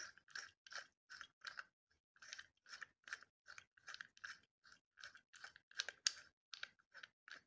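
A bi-metal hole saw being twisted by hand onto the threaded body of an Erbauer quick-hitch arbor. Its threads give a run of short, faint scrapes, about two or three a second, one for each turn of the fingers.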